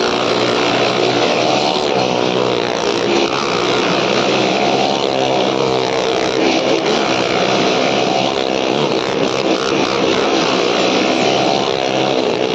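Motorcycle and car engines running continuously as they circle the wall of a wooden well-of-death drum: a loud, steady drone of several engines, echoing in the enclosed drum.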